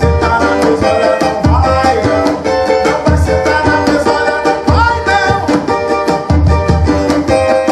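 Cavaquinho and tantan drum playing an up-tempo Pentecostal corinho groove: quick bright cavaquinho notes over a steady low drum beat.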